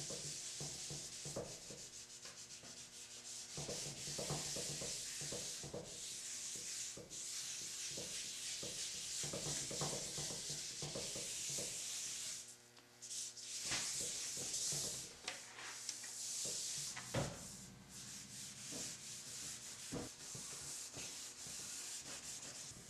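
Back-and-forth hand-sanding strokes of a pad over a walnut bench seat wet with oil finish, a steady scratchy hiss that breaks off briefly about halfway through.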